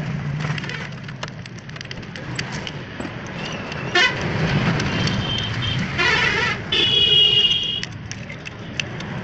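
Vehicle horns honking over a low traffic rumble: a short warbling toot about six seconds in, then a louder, steady toot lasting about a second.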